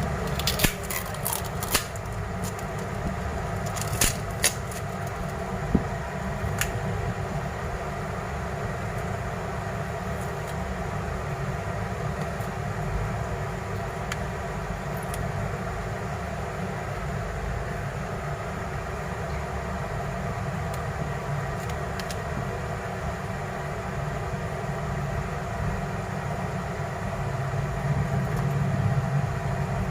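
Steady machine hum with a deep low rumble, and a few sharp clicks in the first several seconds and once more later, growing louder near the end.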